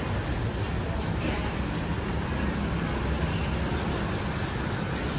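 Steady street ambience dominated by the low rumble of road traffic.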